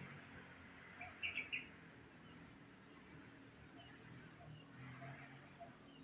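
Insects droning steadily on one high whine, with a few short bird chirps about a second and two seconds in.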